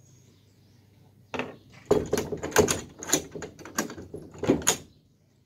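A metal cage gate banging and rattling, a rapid string of knocks that starts about a second and a half in and stops shortly before the end.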